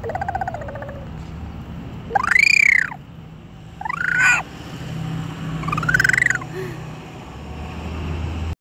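Four high-pitched calls, each rising and then falling in pitch, a second or two apart, over a steady low rumble of a car cabin.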